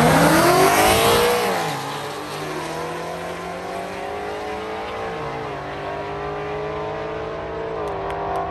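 A race vehicle launching hard and accelerating away down a drag strip. Its engine pitch climbs steeply, then drops at gear changes about one and a half seconds in and again about five seconds in, and it grows quieter as it pulls away.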